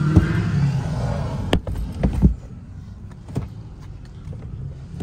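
A few sharp knocks and clatters as items in the plastic underfloor cargo organizer are handled, with rustling at the start. Under them the SUV's idling engine hums steadily.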